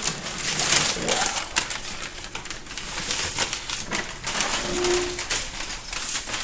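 Brown kraft packing paper crinkling and rustling as it is pulled and pushed out of a cardboard box, with many quick crackles.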